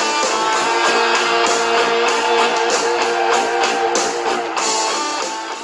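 Guitar-driven music with a steady beat, beginning to fade near the end.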